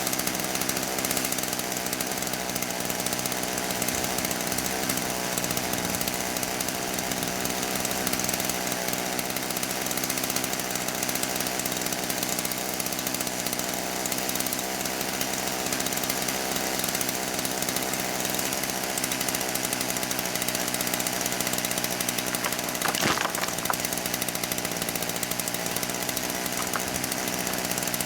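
Chainsaw engine running steadily, with one sharp knock near the end.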